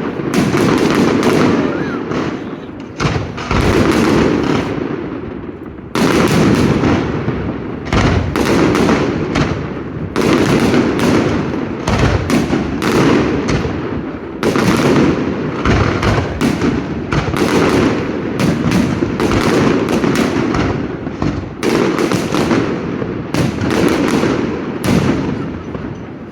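Fireworks display with shells bursting in rapid succession, a near-continuous run of loud bangs with brief lulls.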